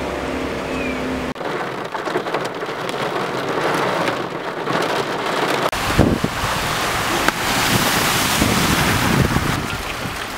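Floodwater hissing and spraying under the tyres of vehicles driving through a flooded road, with engine rumble. A steady engine hum for about the first second, then sudden changes where the footage cuts; the spray grows louder about halfway through.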